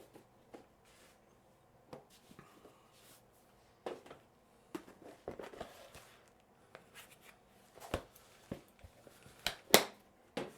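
Micrometers being handled on a workbench: scattered light clicks and knocks, with one sharp knock near the end.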